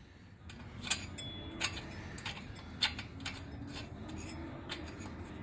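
A spark plug being screwed in by hand into an aluminium cylinder head of a light-aircraft engine, giving a few small metallic clicks and ticks spread over the seconds.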